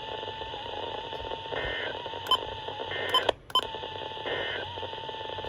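Radio receiver hiss and static between spoken alert messages, with a faint wavering whistle and a few sharp clicks. The signal drops out briefly about three seconds in.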